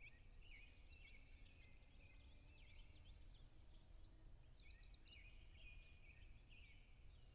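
Faint birdsong: several small birds chirping and twittering in short high notes, with a quick trill about four and a half seconds in, over a low steady background rumble.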